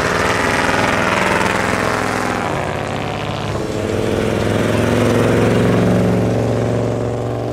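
Classic cars driving past at low speed, one after another. The engines of 1958 Chevrolets pass and fade over the first couple of seconds. Then a 1940 Ford coupe's engine comes in as a steady low hum that grows louder as it approaches.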